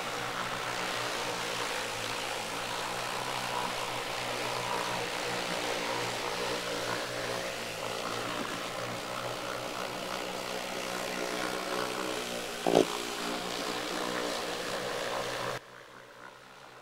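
Corded random orbit polisher running steadily as it buffs paste wax off a sailboat's fiberglass hull. A brief louder knock comes about three-quarters of the way through, and the motor sound cuts off suddenly near the end.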